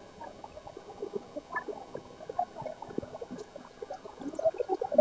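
Soft, irregular rustling and handling of a cherry-fabric abaya as it is lifted and laid out on a counter, a little busier near the end.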